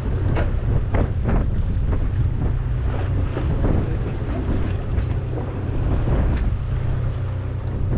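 Wind buffeting the microphone on a fishing boat at sea, a steady low rumble over the sound of the water, with short sharp sounds scattered through it.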